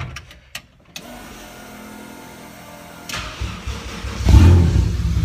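Toyota 1JZ straight-six in a Nissan 240SX being started: a few clicks in the first second, then the starter cranking. The engine fires about three seconds in and catches about a second later, running loudly.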